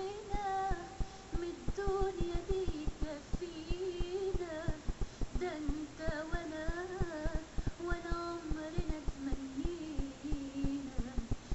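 A woman singing an Egyptian Arabic love song, with long held notes that bend and ornament, over a steady beat.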